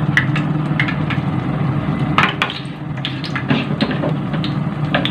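A metal spoon clinking and scraping against a stainless steel bowl as banana pieces are turned in thick batter, with about half a dozen separate clinks. A steady sizzle of a battered banana piece frying in hot oil runs underneath.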